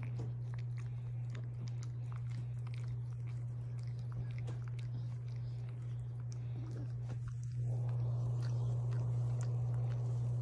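A dog licking and nibbling another dog's head and ear: many small wet clicks and smacks, over a steady low hum that steps up a little about three-quarters of the way through.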